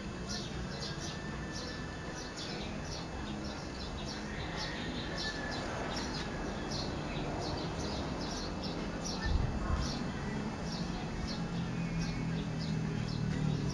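A small bird chirping over and over, short high chirps about two to three a second, over a low outdoor rumble that grows louder near the end. A single thump about nine seconds in.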